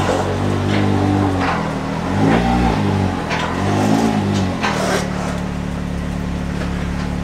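Can-Am Maverick X3's turbocharged three-cylinder engine running at low speed. Two short revs rise and fall about two and three and a half seconds in, then it settles to a steady idle, with a few sharp clicks.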